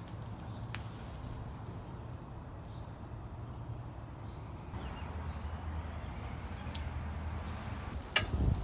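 A silkie hen makes a few faint, soft calls over a steady low outdoor rumble. Near the end there is a brief, louder rattle and squeak from a bicycle.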